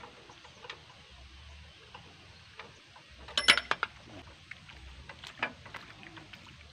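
Metal clanks and knocks as a hand tractor's steel handlebar is handled and fitted back onto the frame, with a quick cluster of sharp clacks about halfway through and scattered lighter ticks around it.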